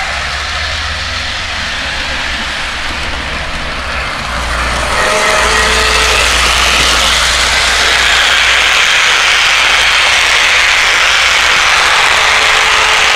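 Lionel 2-6-4 O-gauge model steam locomotive running along the track, a steady rushing whir of motor and wheels with a low rumble under it. It grows louder about five seconds in as the train comes close.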